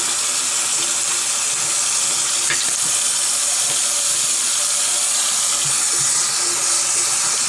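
Tap water running steadily into a sink basin and splashing over the filter parts lying in it, with a few faint knocks.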